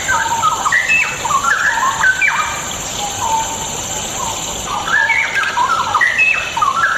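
Straw-headed bulbul (cucak rowo) singing: two bursts of quick, bubbly, rising-and-falling phrases, the first at the start and the second about five seconds in.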